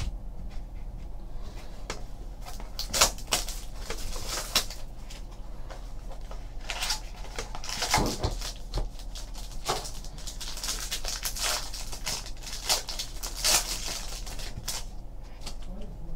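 Foil wrapper of a trading-card pack crinkling and rustling as it is pulled open, in a series of sharp crackles from about three seconds in until near the end, with cards shuffled in the hands. A low steady hum lies underneath.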